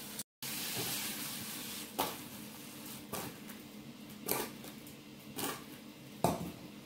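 Saucepan of apple and banana pieces cooking in butter on an electric hotplate, with a faint hiss at first. The pan is then shaken to toss the fruit, giving about five knocks roughly a second apart.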